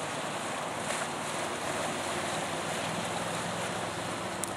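Max IV six-wheel amphibious ATV running steadily through shallow swamp water and soft mud, its engine a low steady hum under the wash of its wheels churning the water.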